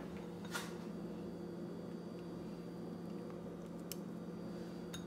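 Quiet kitchen room tone: a steady low hum, with a few faint short clicks of handling about half a second in and again near the end.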